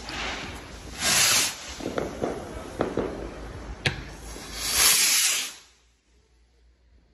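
Fireworks going off: two loud hissing bursts, with several sharp cracks between them, over a steady crackling background. All the sound cuts off suddenly about a second and a half before the end.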